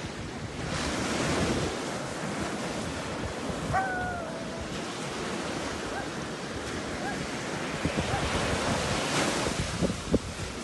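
Wind buffeting the microphone over a steady surf-like wash of noise, swelling about a second in and again near the end. A short high call that falls slightly sounds about four seconds in, with a few faint chirps later.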